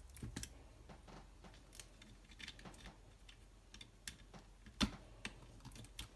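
Faint, scattered clicks and light knocks of small laptop parts being handled and set down on a bench, the loudest a sharp click near the end.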